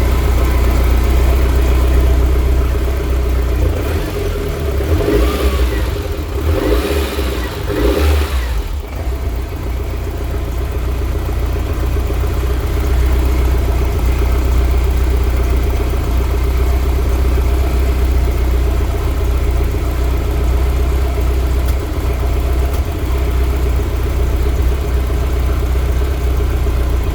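BMW E30 M3's S14 four-cylinder engine with individual throttle bodies idling with a random misfire. The running is steady apart from a few brief louder surges about five to eight seconds in.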